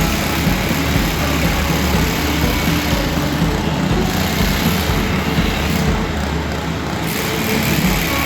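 Engine of construction machinery running steadily.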